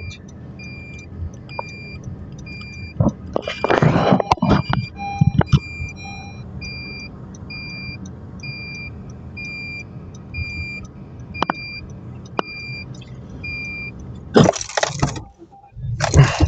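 An electronic beeper inside a moving car, chirping evenly at about one and a half beeps a second over road rumble. It is interrupted by a few loud, brief rustling knocks.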